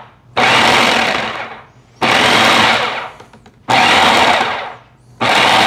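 Food processor pulsing raw ground beef to chop medium-grind meat finer. It runs in four bursts of about a second each, each starting abruptly and dying away as the blade spins down.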